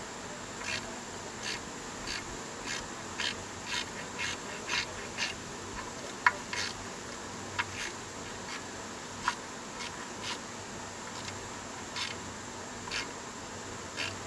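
Ratchet wrench turning a thread-repair tap in the stripped drain-plug hole of an engine oil pan, cutting new threads for a steel insert: a short rasping click with each stroke, about two a second at first and slower later, with a few sharper clicks about halfway through.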